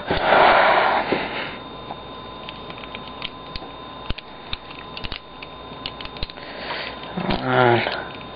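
Loose plastic pieces of a disassembled 3x3 Rubik's cube clicking and tapping as they are handled and fitted, in many small separate clicks. A short noisy rush of breath comes in the first second, and a brief hummed voice sound comes near the end.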